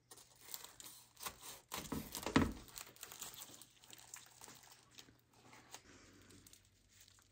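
Quiet, irregular crackling and crinkling of a crisp baked byrek crust and its baking paper as the pastry is handled, loudest around two seconds in and thinning out near the end.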